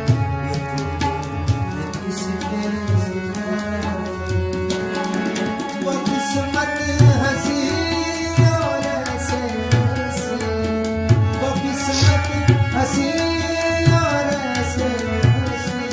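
Tabla and harmonium playing ghazal accompaniment: a steady beat of tabla strokes, the bass drum booming, under a sustained harmonium melody.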